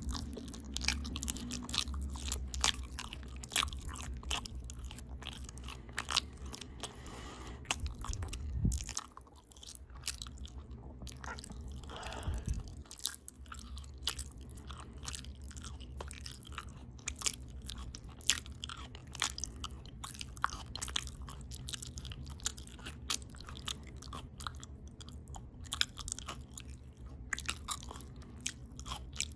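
Close-miked open-mouth chewing of a potato taco bowl (potatoes, ground beef, cheese, lettuce): wet mouth clicks and bites in a quick, uneven stream, with a low background hum that stops about nine seconds in.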